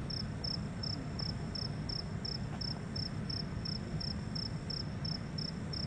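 A cricket chirping in an even rhythm, about three short high chirps a second, over a steady low rumble.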